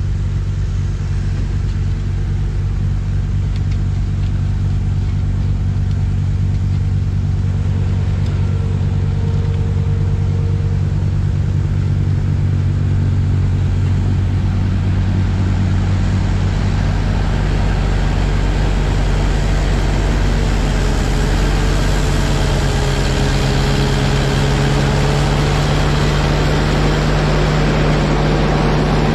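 Trackless MT6 tractor's engine running steadily under load while its front snowblower throws snow, with a rushing noise from the blower. It grows louder as the machine drives up close and passes.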